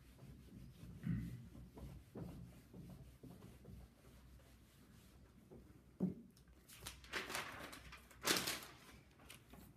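Whiteboard eraser rubbing across the board, then sheets of paper rustling and flapping, loudest about eight seconds in, with a single knock about six seconds in.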